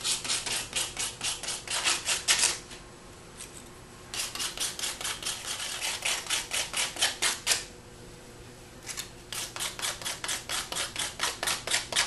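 Quick back-and-forth scraping strokes, about six a second, of a thin 3 mm kite rod being rubbed in a folded piece of sandpaper. The strokes come in three runs, with short pauses about 3 s and 8 s in.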